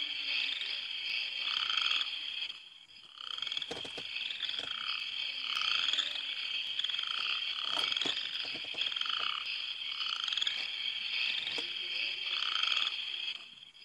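Frogs croaking at night, one short call about every second, over a steady high-pitched chorus.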